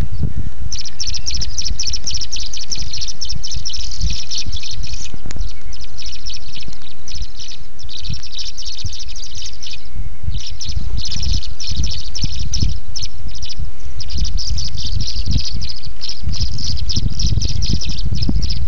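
Tree swallows twittering in rapid, high chattering bursts of a few seconds with short pauses, the calling of birds contesting a nest box. A steady low rumble runs underneath.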